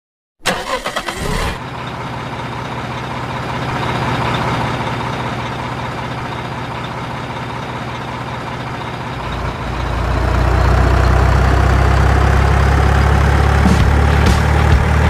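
Truck engine, most likely a dubbed sound effect: it cranks and catches about half a second in, runs steadily, then grows louder and deeper about ten seconds in as it pulls away.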